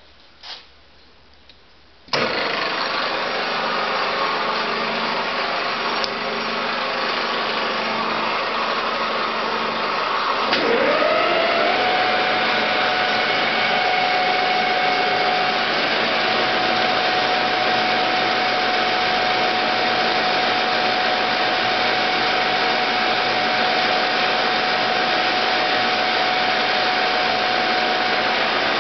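SN320 metal lathe switched on, a loud steady machine run starting suddenly about two seconds in after a few light clicks. About ten seconds in a whine rises quickly in pitch and then holds steady as the lathe runs on, with the spindle turning an aluminium workpiece.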